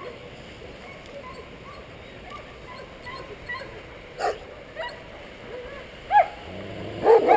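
A dog barking: faint short yips, single barks about four and six seconds in, then a quick run of loud barks near the end.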